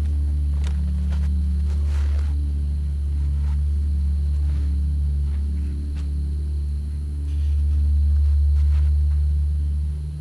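Steady low rumble with a few scattered faint clicks and rustles.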